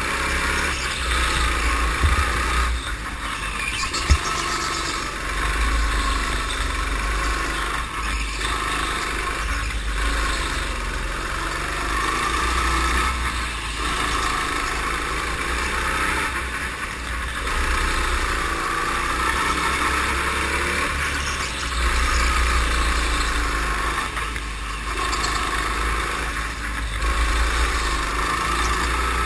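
Go-kart's small petrol engine running hard under the driver, rising on the straights and easing off into the corners every few seconds. A single sharp knock about four seconds in.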